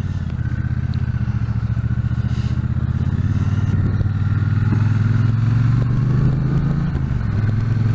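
Triumph T120's parallel-twin engine running with a steady fast pulse, its pitch and loudness climbing slowly, with a brief dip a little after seven seconds in.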